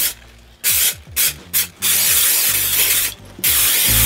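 Aerosol can of shoe waterproofing spray hissing in bursts as leather is sprayed: a few short puffs in the first couple of seconds, then a long spray of over a second, and another shorter one near the end.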